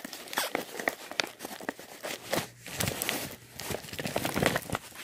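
A mailing bag being pulled and worked open by hand: irregular crinkling with small tearing sounds and clicks.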